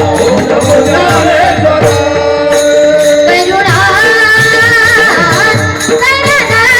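Kirtan devotional music: a held, wavering melody line over a steady beat of drum strokes, with jingling percussion.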